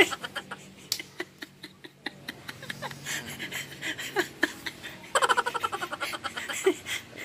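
A man laughing hard in rapid, breathless bursts: quieter laughs and gasps at first, then a loud run of laughter about five seconds in.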